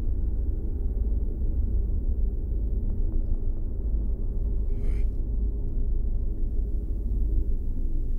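Steady, low rumbling drone of horror-film sound design, with a short breathy hiss about five seconds in.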